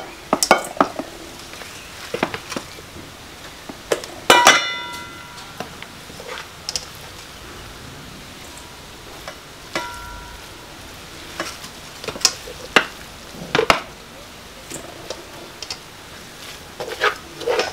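Serving spoon scraping and knocking in a large aluminium cooking pot as stewed greens are scooped out. The pot rings with a clear clang about four seconds in and a fainter one near ten seconds, amid scattered light knocks.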